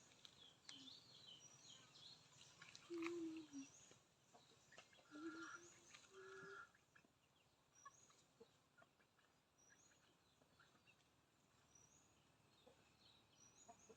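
Chickens clucking faintly, a few short low calls in the first half, with small high chirps recurring every couple of seconds.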